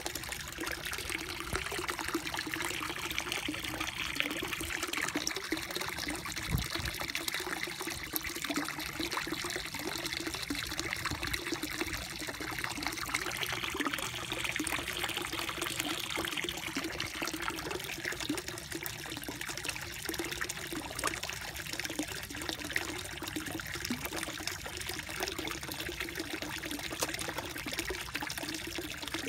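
Steady trickling and splashing of water in a koi pond, with a steady low hum beneath it.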